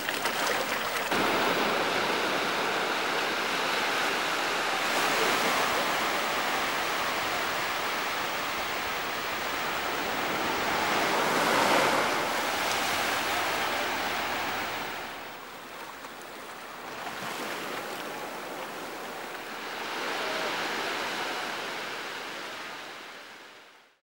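Sea surf: a steady wash of small waves that swells and eases, loudest about halfway through, then fades out at the end.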